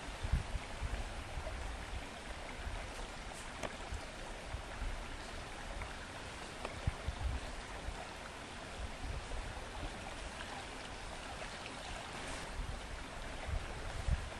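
Steady rush of flowing stream water, with irregular low rumbles underneath.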